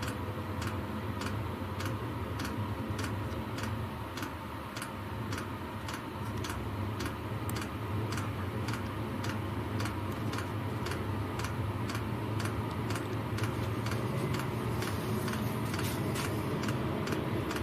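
Chinese 5 kW 12 V diesel air heater during its first start-up: the fuel dosing pump ticking regularly, about two clicks a second, over the steady hum of the blower fan.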